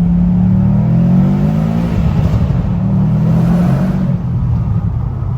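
2007 Subaru STI's turbocharged flat-four running through a new HKS aftermarket exhaust, revving up, its pitch rising over about the first two seconds before settling into a steadier, rougher drone.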